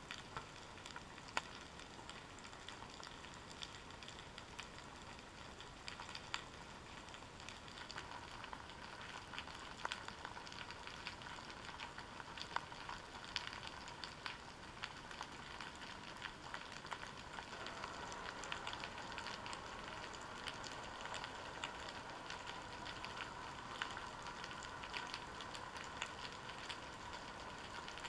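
Underwater crackling on the seabed, a dense, steady patter of small clicks heard through a GoPro Hero 3's waterproof housing. A faint hum grows a little louder past halfway.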